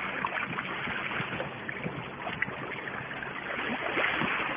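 Sea water washing and lapping against shoreline boulders: a steady wash of noise with small splashes in it.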